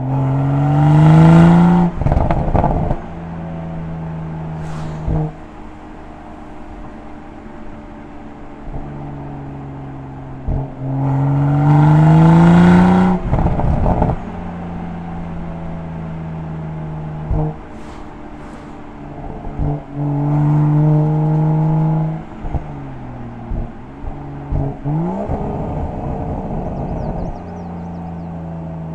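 2021 BMW M340i's turbocharged inline-six, heard at the tailpipes of its M Performance Exhaust, rising in revs four times and dropping back to a steady tone between. Each lift-off is followed by a quick run of exhaust crackles and pops.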